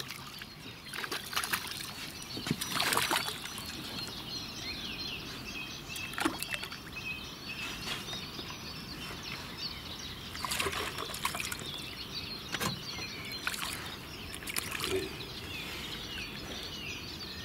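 Water splashing and dribbling beside a rowboat as a hooked perch is brought to the surface and taken by hand, in several short bursts. Birds chirp in the background.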